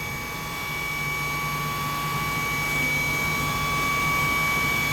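Spindle of a Mori Seiki NV4000DCG vertical machining center running unloaded at 6,000 rpm: a steady machine whine with a high tone held at one pitch.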